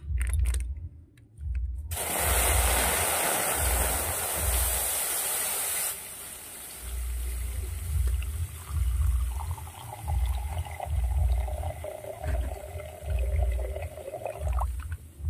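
Milk poured in a continuous stream into an aluminium kadai, splashing and foaming. It starts about two seconds in and is loudest for the first few seconds, then stops just before the end. An intermittent low rumble runs underneath.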